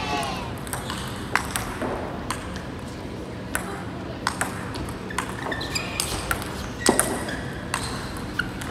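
Table tennis rally: the ball clicking off the paddles and the table, one sharp tick about every half second to second in an uneven rhythm.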